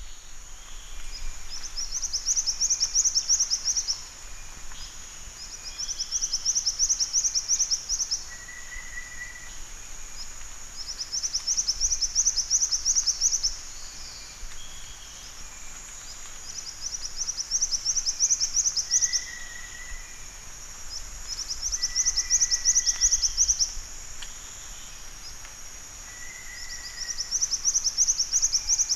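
Black-winged flycatcher-shrike singing: high, rapid trilled phrases of two to three seconds each, repeated six times about every five seconds, with a few short lower notes between them. A steady high insect drone runs behind.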